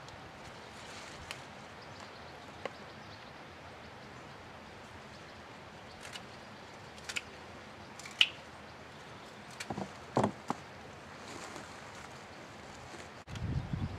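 Broad bean plants being picked over by hand: scattered sharp snaps as pods are pulled off and rustling of stems and leaves, over a steady outdoor hiss. A louder rustling bump comes near the end.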